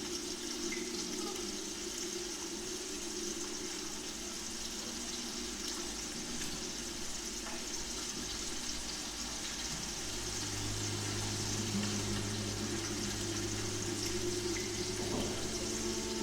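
Recorded ocean sounds: a steady, water-like rush under quiet held low instrumental tones. A lower sustained note enters about ten seconds in and stops near the end.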